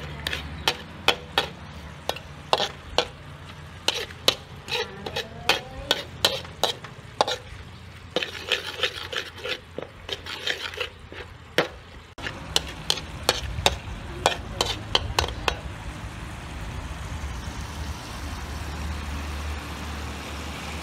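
Metal ladle stirring sauce in a steel wok, scraping and clinking against the pan in irregular knocks, roughly two a second. The knocking stops about sixteen seconds in, leaving the steady sizzle of the hot sauce.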